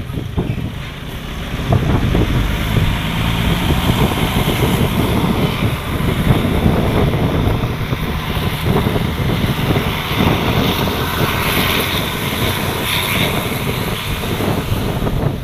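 Engine and road noise of a large bus driving past, with wind buffeting the microphone.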